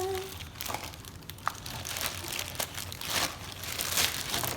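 A giant silicone pop-it fidget toy being handled, with irregular soft clicks, pops and rustling.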